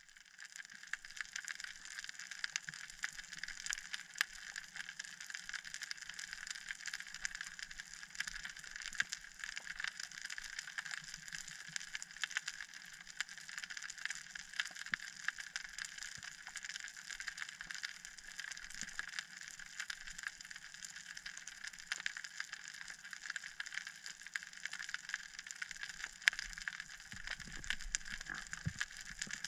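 Underwater ambience over a rocky reef: a steady, faint crackling made of many tiny clicks, with one slightly louder click near the end.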